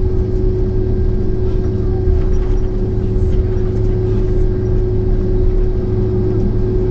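Cabin noise of a Boeing 767-400ER waiting to take off, engines at idle: a steady low rumble with a constant hum tone.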